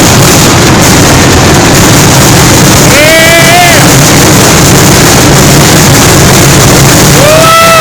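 Loud, steady rumble of downtown street noise. Two short high-pitched whoops cut through it, each rising and then holding, one about three seconds in and one near the end.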